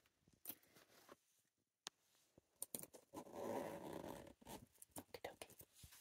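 Metal zipper on a canvas cosmetic pouch being unzipped, one long rasping pull about three seconds in, with small clicks of the zipper pull before and after.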